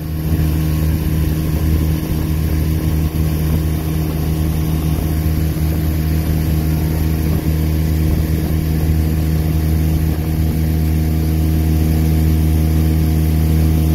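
Honda 10 hp four-stroke outboard motor running steadily under load, towing a tube with two riders.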